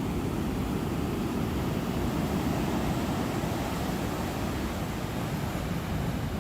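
Steady low rumble of surf and wind at the shore, with no distinct events.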